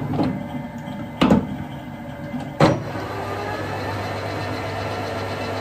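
Three sharp metal clunks as the lathe is set up, then the metal-turning lathe starts about three seconds in and runs with a steady hum.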